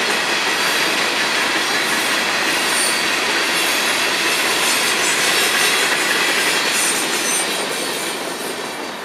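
Freight train's hopper cars rolling past on the rails, wheels clattering with a thin high squeal. The sound fades over the last couple of seconds as the end of the train goes by.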